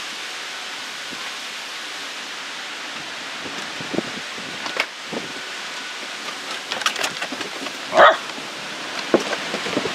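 Sheltie puppy making a few short, sharp sounds over a steady hiss, the loudest about eight seconds in.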